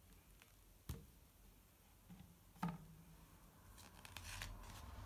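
A hardback picture book being opened on a table: a soft knock about a second in and another just before three seconds as the cover is handled, then quiet paper rustling as the pages are turned.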